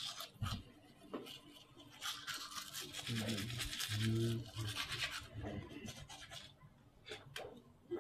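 Manual toothbrush scrubbing teeth in quick, scratchy back-and-forth strokes that come in runs with short pauses, busiest in the middle.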